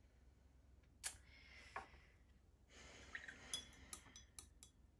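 Faint clinks and light taps with soft rustling, from small painting tools being handled and set down on the work table: one click about a second in, then a quick cluster of ticks in the second half.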